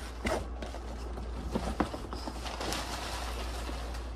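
A long cardboard product box being handled and lifted, giving a few light knocks, over a steady low hum.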